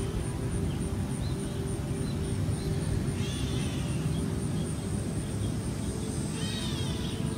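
Outdoor backyard ambience: a steady low rumble, with a bird chirping in two short bursts, about three seconds in and again near the end.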